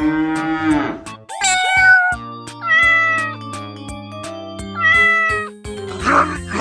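A cat meowing about five times, each meow a drawn-out call that rises and falls in pitch, over background music with a steady beat.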